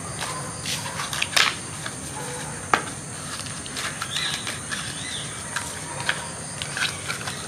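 Scattered clicks, taps and light rustling of drone accessories and their packaging being handled during an unboxing, with a steady high-pitched background whine throughout.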